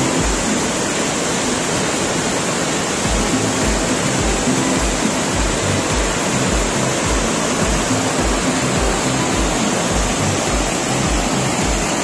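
Steady rushing waterfall noise, with background music and a steady bass beat over it.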